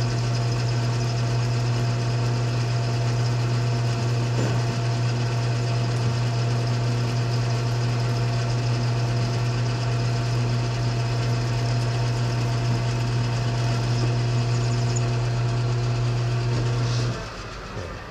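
Metal lathe running steadily with a steady hum while taking a full turning cut on a part held in a four-jaw chuck. Near the end the lathe is switched off and the hum stops abruptly.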